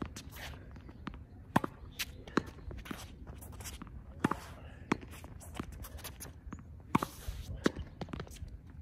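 Tennis ball rallied against a practice backboard: a string of sharp knocks from racket strikes, the ball hitting the wall and bouncing on the hard court, with footsteps and shoe scuffs between strokes.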